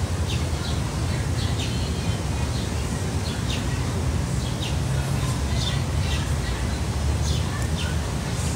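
Small birds chirping: short, high, falling chirps about two a second, some in quick pairs, over a steady low rumble.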